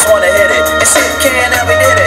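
Loud music with singing over a heavy, steady bass line.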